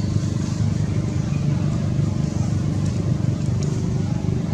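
A motor vehicle engine running steadily, a continuous low rumble.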